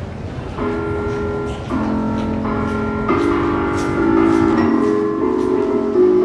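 Piano-key stairs in a subway exit, each step sounding a piano note: held, overlapping notes follow one another as people climb the stairs, starting about half a second in.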